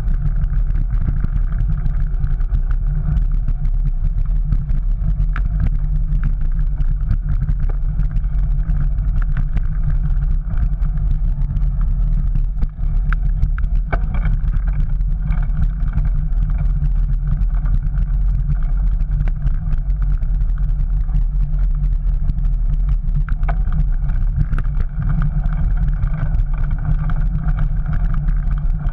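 Steady low rumble of wind and riding noise on a bike-mounted action camera's microphone while cycling, with a few faint clicks and rattles.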